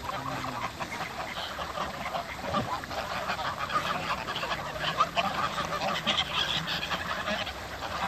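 A close, crowded flock of Canada and greylag geese honking and calling over one another in a continuous overlapping clamour.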